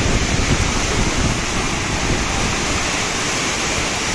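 Muddy river in full flood rushing past beneath a bridge: a loud, steady rush of churning water.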